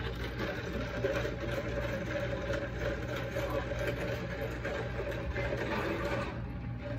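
Steady machine hum with a constant mid-pitched tone over a low drone.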